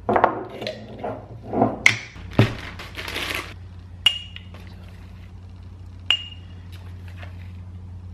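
A glass jar clinking as it is handled while dry ingredients are set up for mixing: a few knocks and a brief shuffling hiss, then two sharp clinks a couple of seconds apart, each with a short high ring. A steady low hum runs underneath.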